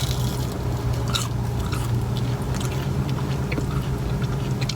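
Close-up chewing and biting of fast food, with small crunches and mouth clicks scattered throughout. A steady low hum runs underneath.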